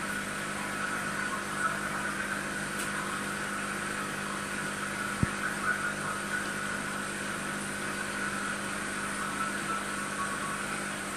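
Aquarium air pump humming steadily, with air bubbling from an airstone in the tank. A single low thump about five seconds in.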